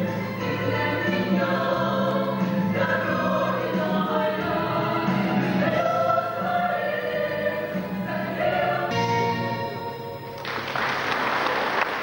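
A choir singing. About ten seconds in the song ends and the audience breaks into applause.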